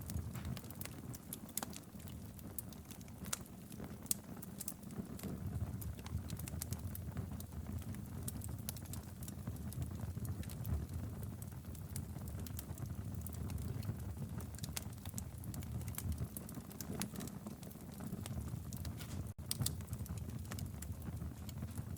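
Wood fire burning in a fireplace: irregular sharp crackles and pops over a steady low rumble of flames.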